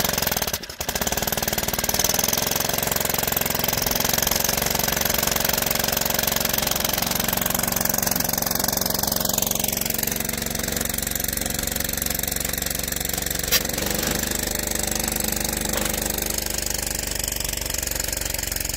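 Small gasoline engine of a transfer pump running steadily, still on choke just after its first cold start of the year.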